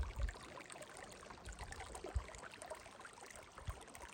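Running water, a steady trickling flow.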